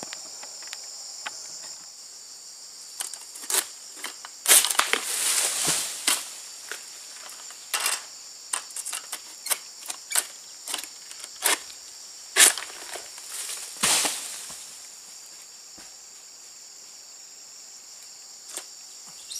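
An egrek, a sickle on a long pole, hacking and scraping at an oil palm to cut a ripe fruit bunch loose. It makes an irregular run of sharp cutting strokes from about three to fourteen seconds in, over a steady high insect chorus.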